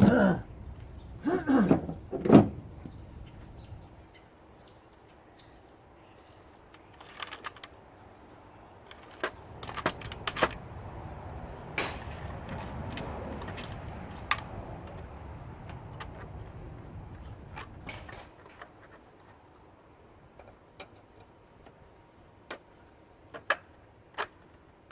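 Hand work on an electric scooter's drive motor: a few creaks or squeaks near the start, then scattered metal clicks and knocks as parts are worked loose. Birds chirp faintly in the first few seconds.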